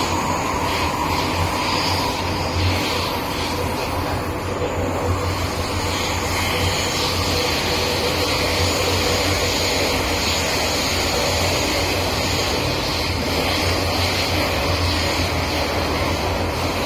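MTR M-Train running steadily between stations, heard from inside the car: a continuous rumble of wheels and running gear over a strong low hum, with faint steady whining tones.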